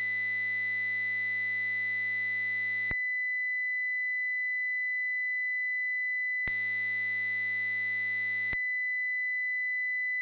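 A high, steady digital sawtooth note from a Max/MSP synthesizer patch, switched back and forth between two versions. The version built from a naive impulse train carries a crowd of extra low aliasing partials under the note, which make it a harsh, buzzy, out-of-tune sound. The band-limited (BLIT) version is a clean bright tone. The sound changes to the clean version about 3 seconds in, back to the aliased one about 6.5 seconds in, and clean again about 8.5 seconds in.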